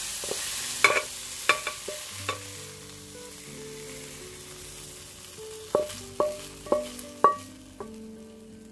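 Stir-fried garlic broccoli sizzling in a nonstick frying pan as it is tipped onto a plate, the sizzle dying away over the first few seconds. A wooden spatula knocks and scrapes against the pan, with sharp ringing taps in two runs of four or five.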